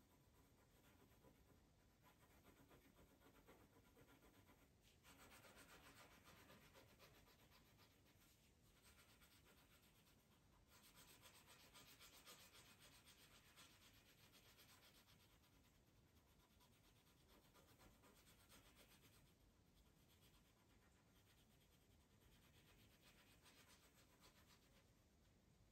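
Faint scratching of a coloured pencil shading on paper, in bouts of quick back-and-forth strokes, loudest from about five to eight seconds in and again from about eleven to fifteen seconds.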